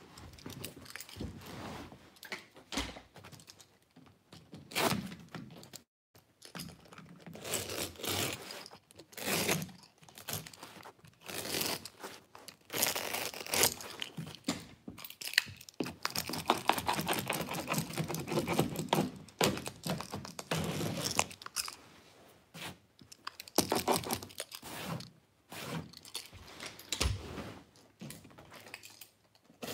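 Carpet being trimmed along the wall by hand with a knife: irregular tearing, crunching strokes as the blade cuts through the carpet backing, with rustling and scraping of the cut-off strip and a few knocks.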